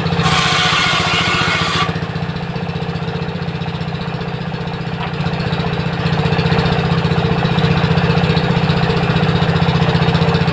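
A 16 HP diesel engine running steadily with a fast chugging pulse as it drives a table saw's circular blade. Near the start, a high rasping hiss lasts about a second and a half as the blade cuts through wood.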